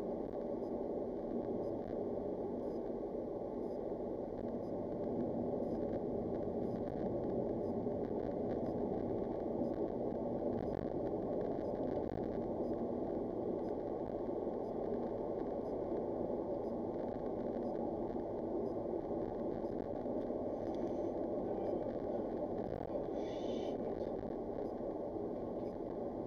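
Steady road and engine noise of a moving car, heard inside the cabin through the dash cam's microphone: an even rumble that holds level throughout.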